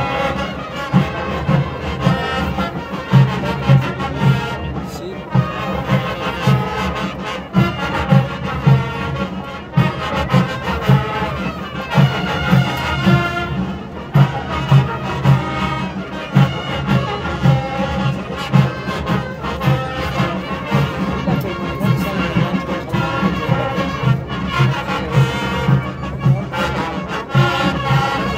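Student marching band playing live: massed brass carrying the melody over a steady, regular bass-drum beat.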